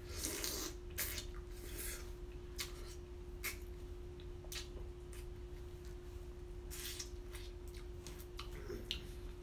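Close-up eating sounds of crab legs: irregular crackling and clicking of shell being picked apart, with wet mouth and chewing sounds, over a faint steady hum.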